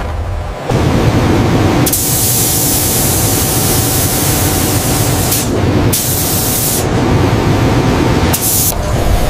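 Robot-arm paint spray guns hissing: one long spray of about three seconds, then two shorter bursts, over a steady low machine rumble.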